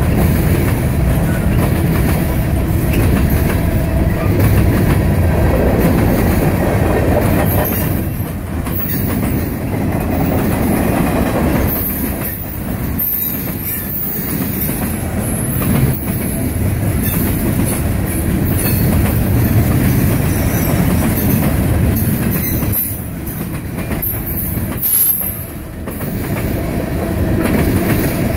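Cars of a long mixed freight train rolling past close by: a steady rumble and clatter of steel wheels on the rails, with high-pitched wheel squeal on and off.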